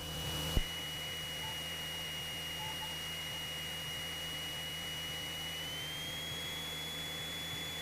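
Cessna 172 cockpit sound through the headset intercom feed: a steady hiss and low engine hum with a thin high whine that steps up slightly in pitch about six seconds in. A click about half a second in.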